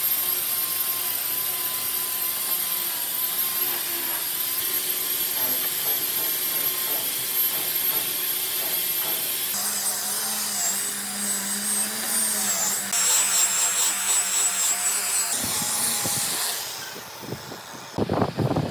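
Electric power tool running steadily with a high whine. Its tone shifts about halfway through, and it dies away near the end as a few knocks start.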